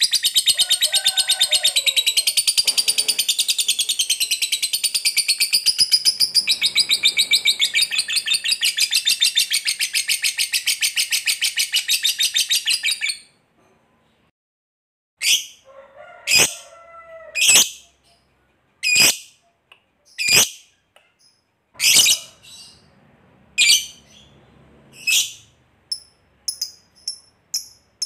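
Fischer's lovebird giving its long, rapid chattering trill ('ngekek panjang'), high-pitched and unbroken for about thirteen seconds before it stops abruptly. After a short pause come single sharp chirps about a second and a half apart, giving way to quicker, fainter chips near the end.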